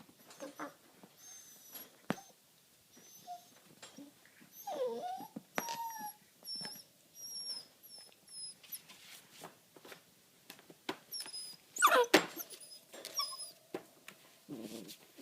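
Eight-week-old whippet puppy whining and yelping in short, high-pitched calls, with the loudest yelp about twelve seconds in. Scattered clicks sound between the calls.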